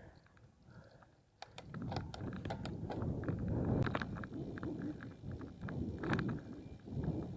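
Low rumble of wind and road noise with a scatter of clicks and rattles, starting suddenly about a second and a half in: a bicycle ride picked up by a phone.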